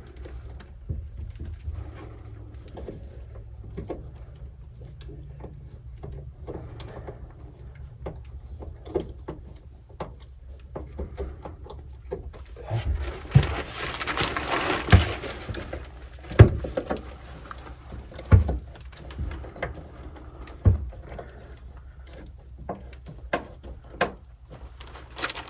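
Scattered knocks and clunks as the time capsule vault under the altar is handled and closed up, with a few seconds of rough scraping noise about halfway through, over a low steady hum.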